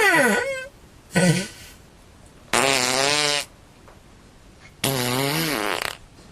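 Four separate fart noises in a row: a short one falling in pitch at the start, a brief one about a second in, then two longer, wavering ones of about a second each.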